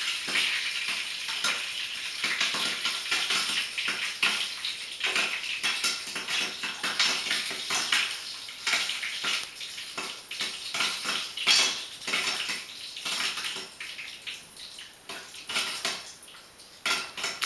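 Popcorn popping in a pot on the stove: a dense, rapid patter of kernels bursting and hitting the pot and lid over a steady hiss. The pops thin out and grow quieter near the end as the batch finishes popping.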